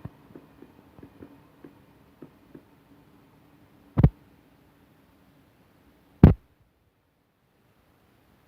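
Washing machine spinning a half load: a low steady hum with light, irregular knocks that fades out after about three seconds. Then come two loud, sharp thuds a little over two seconds apart.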